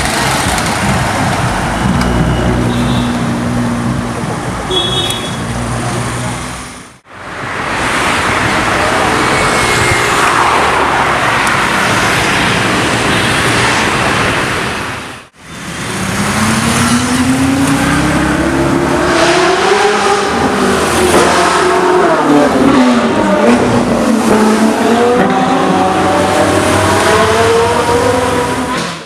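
Supercar engines over three short clips with two brief cuts between them. In the last clip an engine revs up and down repeatedly, its pitch rising and falling.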